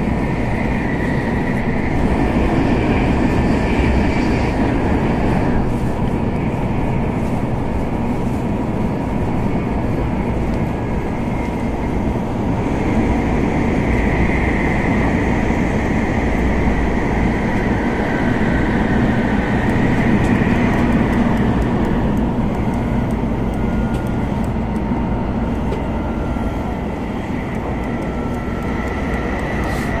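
N700A Shinkansen cruising, heard from inside the passenger cabin: a steady rumble of running and wind noise, with a faint high whine that comes and goes.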